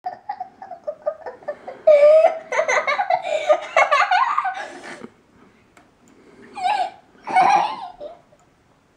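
A young girl giggling and laughing: quick rhythmic giggles, then a loud fit of laughter, then two shorter bursts of laughter near the end.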